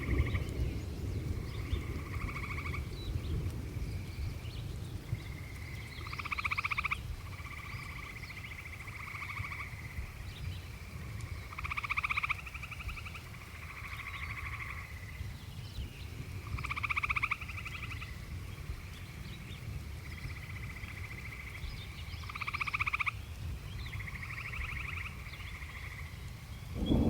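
Frogs calling in a chorus: repeated trilling calls, the loudest about every five to six seconds, over a steady low rumble.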